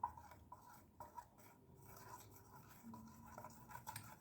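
Near silence, with a few faint taps and light scratching from small objects being handled.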